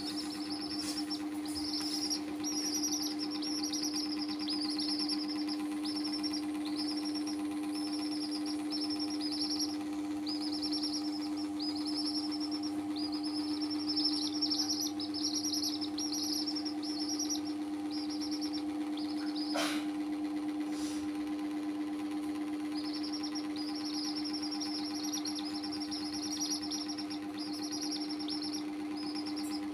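Domestic chicks peeping in a fast, near-continuous run of short high falling peeps, with one brief pause about two-thirds of the way through. A steady low hum runs underneath, and there is a single click just before the pause.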